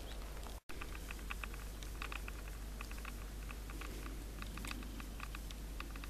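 Faint outdoor ambience: a low steady hum under many short, high ticks or chirps scattered in quick clusters. The sound cuts out completely for a moment about half a second in, at an edit.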